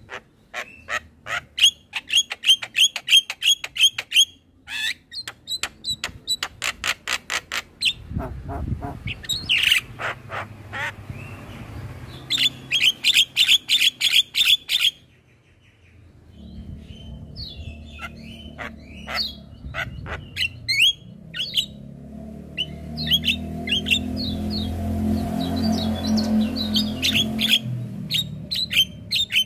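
Javan myna singing in fast runs of sharp, repeated chattering notes, with a short break about halfway. From about halfway a low rumble rises underneath, loudest a few seconds before the end.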